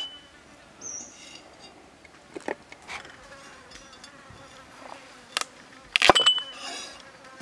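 Heavy steel cleaver striking a thick wooden chopping block a few times with sharp knocks. The loudest, a quick pair near the end, leaves a brief metallic ring from the blade. Insects buzz faintly in the background.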